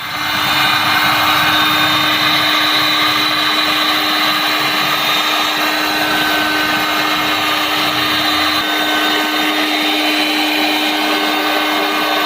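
A power tool running steadily at constant speed, with a steady hum and a higher whine.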